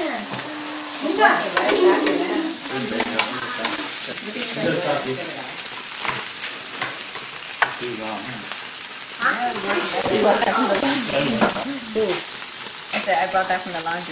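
Pork slices and shrimp sizzling on a gas grill, with a few sharp clicks of a utensil against the grate. Indistinct voices come and go underneath.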